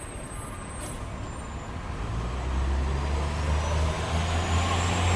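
Street-traffic sound effect: a heavy vehicle's engine rumble swells in about two seconds in and keeps running over a steady background of city noise.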